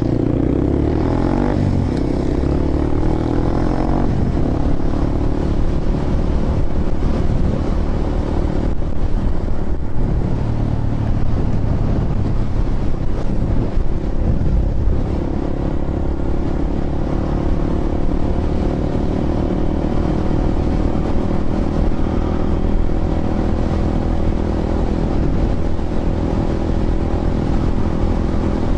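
Honda Grom's small single-cylinder four-stroke engine running under way at a steady cruise, its pitch shifting a little with the throttle.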